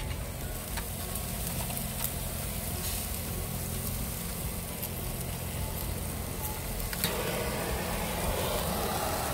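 Ribeye steaks sizzling as they sear on the grate over hot charcoal, a steady hiss with a few faint crackles and one sharper crack about seven seconds in.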